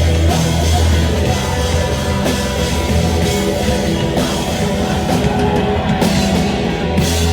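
A live rock band playing loudly, with drum kit and guitar.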